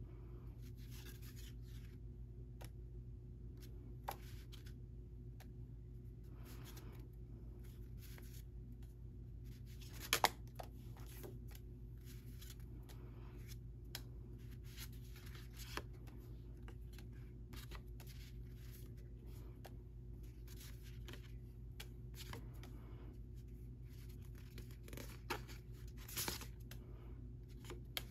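Stiff paper journaling cards being slid off a stack one at a time and laid down: soft rustles and light taps, with a sharper click about ten seconds in and a couple more near the end, over a low steady hum.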